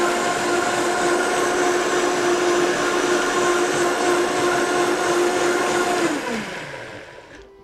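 Countertop blender running steadily, blending a green mixture in its jar, then switched off about six seconds in, its motor winding down with a falling pitch.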